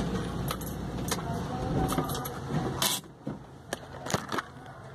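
Truck cab sound: a low engine rumble with a string of short clicks and knocks, the rumble dropping away sharply about three seconds in.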